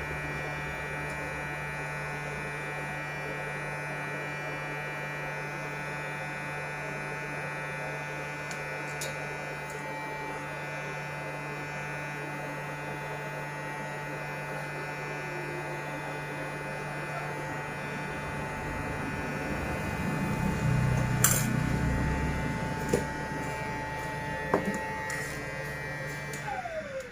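Hot-air rework station blowing, a steady electric hum, while a shorted B-FET MOSFET is desoldered from a laptop motherboard. A few light clicks come near the end, then the hum falls in pitch and stops.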